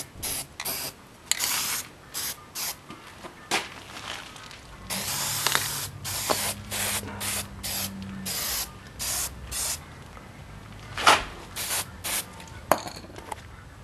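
Aerosol spray paint can spraying in many short, irregular bursts of hiss, with a louder burst and a sharp click in the last third.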